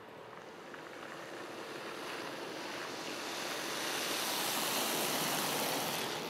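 Car tyres hissing on a wet, slushy road as a car drives past close by, a steady rushing noise that builds to its loudest about five seconds in.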